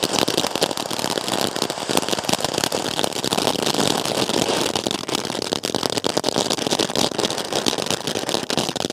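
Ground fountain firework spraying sparks: a steady loud hiss thick with rapid crackling pops.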